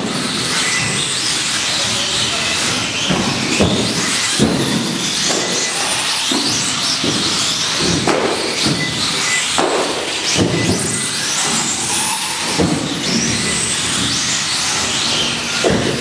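A pack of small electric radio-controlled race cars running round a track, their motors whining and rising and falling in pitch as they accelerate and brake, several overlapping at once.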